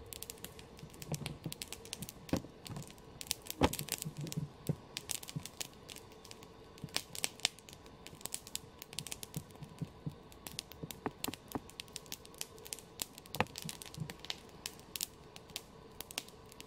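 Campfire of dry dead branches crackling, with frequent irregular sharp pops, a couple of them much louder.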